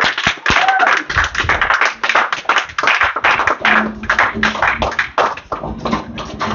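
Audience applauding, a dense run of hand claps, with a walk-on dance track with a steady beat coming in about halfway through.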